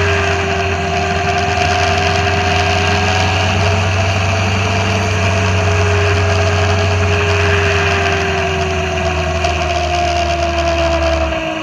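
Motorcycle engine running at a steady cruise from the bike's own mounted camera, over an even rush of road noise. The engine pitch sinks slowly near the end as the bike eases off.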